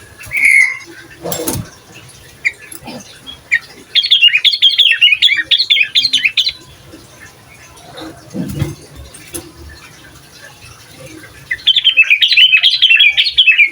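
Sooty-headed bulbul (kutilang) singing: two bursts of quick, chattering notes, one a few seconds in and one near the end, with a single note just after the start. A couple of low knocks fall in between.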